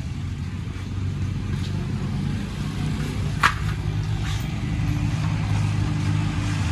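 Bajaj Pulsar RS200's single-cylinder engine idling steadily, with one sharp click about three and a half seconds in.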